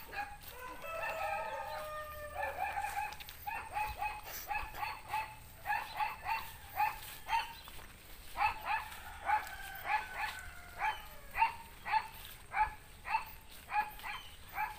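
Chicken calls: a rooster crows once at the start with a long, slightly falling call, then a chicken keeps up a run of short, evenly spaced clucks, about two a second.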